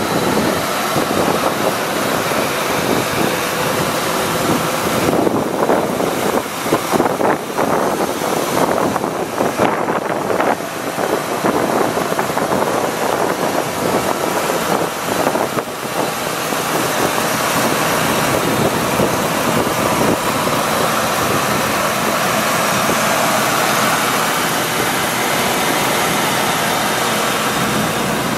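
A 1999 Ford F450 truck running, heard from inside the cab as a loud, steady rushing noise. The noise is uneven through the first half, then evens out.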